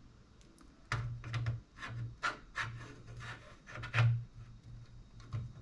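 Small scale-model seat parts being handled and fitted by hand on a desk: a run of light clicks and scraping rubs with dull bumps, starting about a second in.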